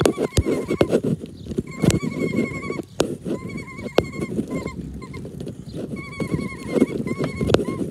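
A zoo ride-on train running along its track: a low rumble with sharp clicks and knocks from the wheels. A high, wavering squeal comes and goes every second or so.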